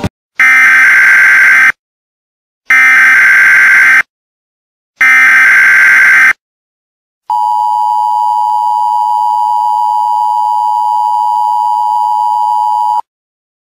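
Emergency Alert System broadcast alert: three short bursts of the buzzing digital header tones, evenly spaced, then the steady two-tone attention signal held for about six seconds and cut off suddenly.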